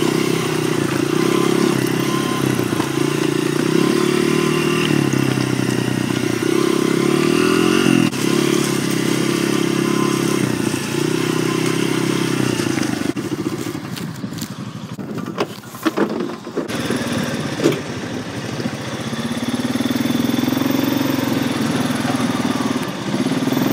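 Dirt bike engine running on a rocky trail, its pitch shifting with the throttle. About halfway through the engine sound drops away and a few sharp knocks are heard, then an engine runs steadily again near the end.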